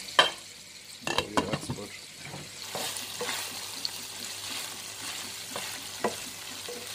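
Seekh kebabs sizzling steadily in a frying pan, with a few clinks and knocks of utensils and dishes in the first two seconds.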